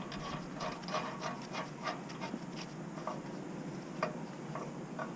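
Light, irregular metal clicks and rubbing from hand tools and hardware as the connecting rod's nut and bolt are worked on, several small clicks a second with a slightly sharper one about four seconds in.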